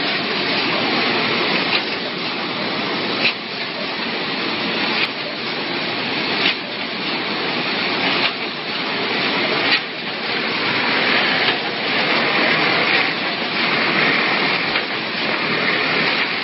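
Double-head cement bag sewing machine running: a steady mechanical rattle with a sharp click about every second and a half.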